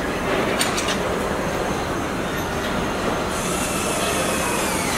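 Body-shop machinery on a car assembly line: industrial robots and line equipment running as a steady, dense mechanical din. Short hisses come about half a second in, a higher hiss sets in past the middle, and a faint whine falls slightly near the end.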